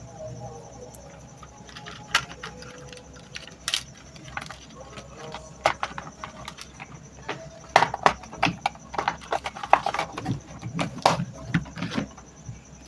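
Irregular clicks and knocks of hands working on a stand fan's plastic parts and wiring, scattered at first and coming thick and fast in the second half.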